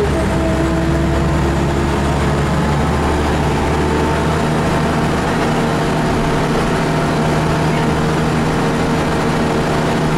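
Scania DSC9 9-litre six-cylinder turbo diesel of a Scania L94IB bus, rear-mounted and driving through a ZF 5HP500 automatic, heard from inside the passenger cabin while under way. Its note shifts about four seconds in.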